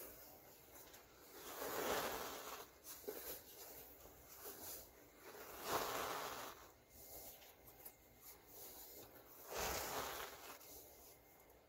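Fine white powder falling from the hands into a plastic tub, landing in a soft dusty hiss, three times about four seconds apart.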